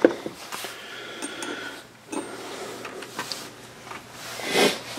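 Light clicks and taps of small metal hand tools, a gunsmith's hammer and punches, being laid down on a wooden workbench, followed by a short, louder rustle near the end.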